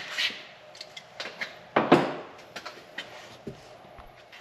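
Clicks and light knocks of parts being handled, with one louder clunk about two seconds in.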